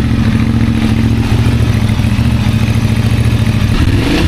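Honda XL750 Transalp's parallel-twin engine idling steadily through an aftermarket slip-on exhaust, just after being started. It is being run for a couple of minutes on freshly changed oil as a leak check.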